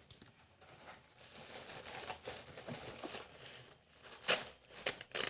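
Packaging rustling and crinkling as items are handled and lifted out of a box, with a few louder, sharp crackles near the end.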